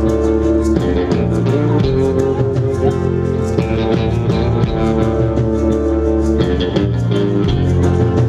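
A live rock band playing an instrumental passage with no vocals: guitars, bass and drums at full volume.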